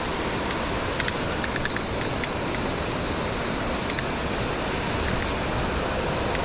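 Steady rush of water from a creek waterfall.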